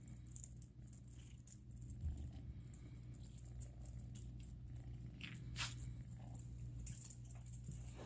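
Light, continuous rattling and crinkling from a cat wand toy as kittens bat and grab at it, with a short louder swish about five and a half seconds in, over a steady low hum.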